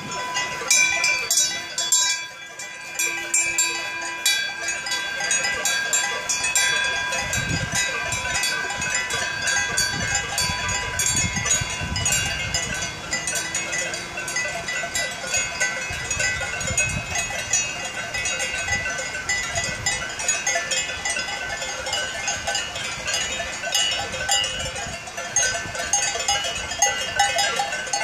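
Many cowbells on a walking herd of cows ringing and clanking without a break, several bells at different pitches overlapping.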